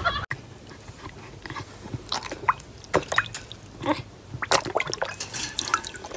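A dog lapping water from a bowl: irregular wet laps and drips.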